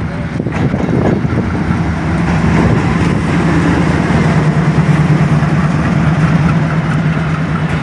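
Pakistan Railways AGE30 diesel-electric locomotive 6007 running with a steady low engine drone as it leads a passenger train in. The drone firms up and grows slightly louder about two seconds in, with a few clanks in the first second.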